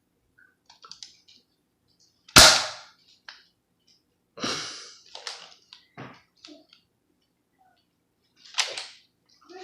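Nerf blaster shots and dart hits: separate sharp snaps, the loudest about two and a half seconds in, others around four and a half seconds and near the end, with smaller clicks between.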